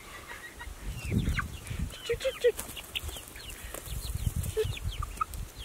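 Young chickens peeping: many short, high chirps that slide in pitch, with a few lower clucks among them. A low rustling runs underneath, heaviest about a second in and again near the end.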